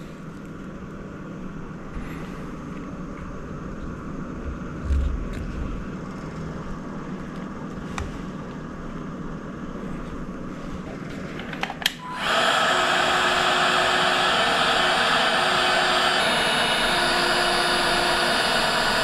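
Small electric blower switched on about twelve seconds in, running with a loud, steady whoosh. Before that there is a quieter rushing noise that slowly grows, with a brief thump about five seconds in.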